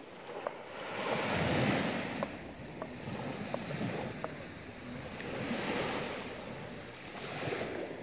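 Small waves breaking gently and washing up a sandy shore. The surf swells and fades every couple of seconds.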